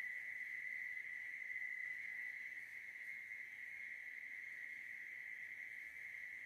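Faint, steady, high-pitched drone of a chorus of insects, holding one pitch without a break.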